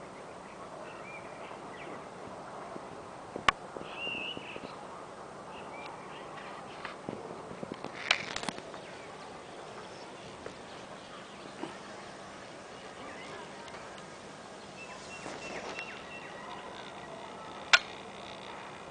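Outdoor ambience with a steady background hiss and birds chirping now and then. A few sharp clicks or knocks stand out, the loudest about three and a half seconds in and near the end.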